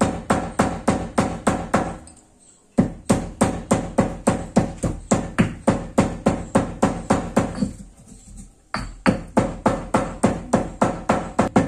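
Stone pestle pounding dried coconut and peanuts in a stone mortar (khalbatta): quick, even strokes at about four a second, each a short ringing knock. The pounding pauses briefly twice, about two seconds and eight seconds in.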